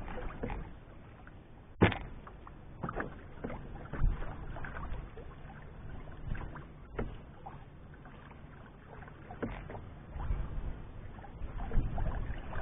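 Canoe paddling on a lake: a paddle dipping and pulling through the water with small splashes and drips along the hull of an Old Town Discovery 133 canoe, under wind rumble on the microphone. A single sharp knock about two seconds in is the loudest sound.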